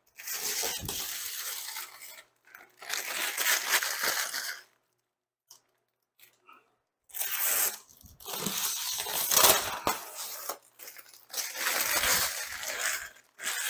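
Protective plastic film being peeled off a new tinted windshield panel: four long tearing peels with short pauses between them.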